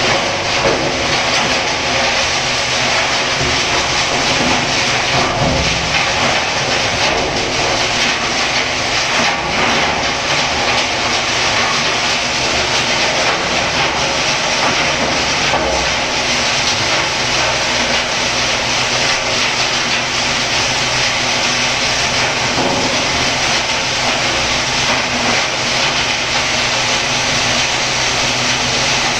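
25-inch heavy-duty industrial grinder running steadily at a constant loud level, with a low machine hum under a dense grinding noise and scattered faint knocks.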